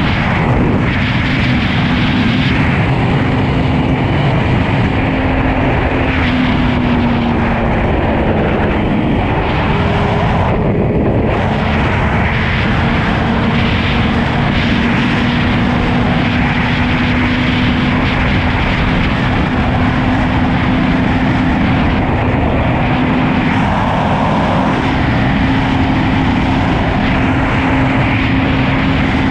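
Suzuki GSX-R1000 inline-four engine running at a steady speed under heavy wind rush, as heard from the moving bike. About eight seconds in the engine note sags briefly, then settles back to a steady pitch.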